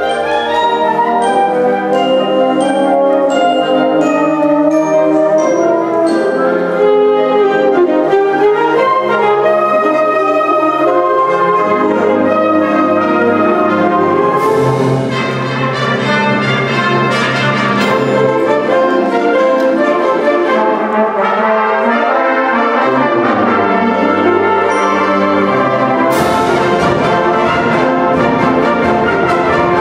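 Youth concert band of woodwinds, brass and percussion playing, with full, sustained chords throughout. A crash rings out about halfway through and another near the end.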